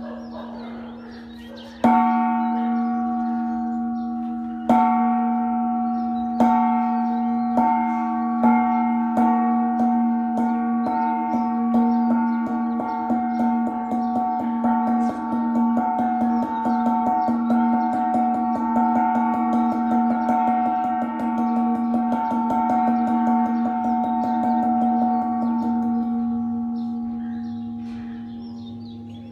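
Hanging gong struck with a mallet, signalling the start of a class. The first strike comes about two seconds in; the strikes come slowly at first, then closer and closer together into a fast roll. The roll stops near the end and the gong rings out and fades.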